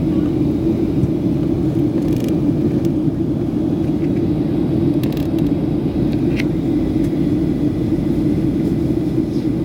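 Steady cabin roar of a Boeing 737-700 on approach, heard from inside the cabin: CFM56-7B turbofan and airflow noise, with a few faint clicks.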